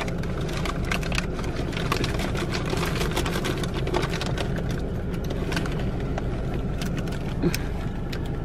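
Plastic snack wrappers crinkling and rustling as packets of powdered donuts are pushed into a leather backpack, with many small crackles throughout. Under it runs the steady low rumble of a car idling.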